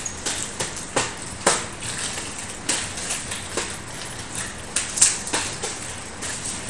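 Nunchaku being swung and caught: a string of sharp, irregular clacks and slaps as the sticks strike the hands and body, the loudest about five seconds in.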